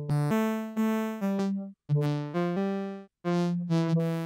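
Audulus modular synth patch playing a sequenced run of low pitched synth notes driven by spline sequencers, about two to three notes a second. Each note starts sharply and fades, and the line steps between a few pitches.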